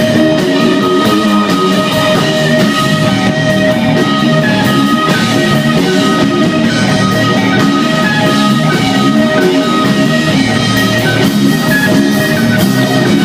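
A rock band playing live: electric guitars over a drum kit, loud and steady, with held guitar notes ringing over the beat.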